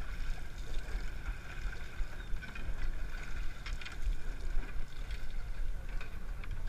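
Steady low rumble of a sportfishing boat's engine, with wind buffeting the microphone and a few faint clicks about halfway through.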